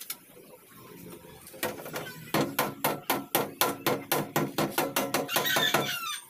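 Hammer striking sheet metal in a quick, even series of blows, about four or five a second, each with a metallic ring, starting about a second and a half in. This is body-panel metal being beaten into shape.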